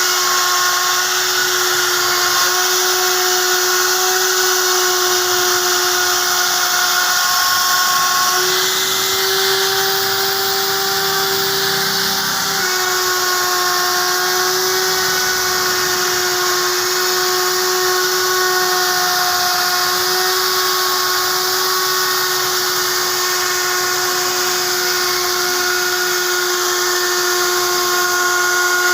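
Wood router spindle running continuously as it cuts wood: a steady high whine over a hiss. The pitch steps up slightly about eight seconds in and drops back about four seconds later.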